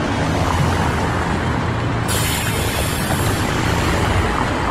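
Busy city street traffic: cars passing close by over a steady low rumble, with a sudden hiss that starts about two seconds in and holds.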